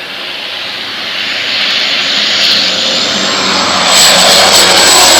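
A loud engine drawing closer, its noise swelling steadily with a thin high whine that rises and then holds, and a jump in loudness about four seconds in.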